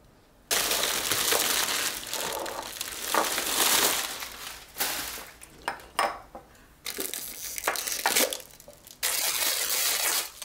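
Crumpled packing paper and plastic wrapping crinkling loudly in repeated bursts as glassware is unwrapped, with a couple of short glass clinks about six seconds in as a glass teapot lid is handled.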